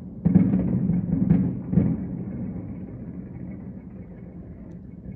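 Distant fireworks bursting: three booms in the first two seconds, then a low rumble that slowly fades.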